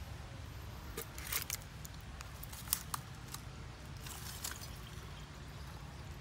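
Plastic water bottle handled against an opened coconut while coconut water is poured: scattered light clicks and crinkles of the bottle, in two small clusters about a second in and about four seconds in.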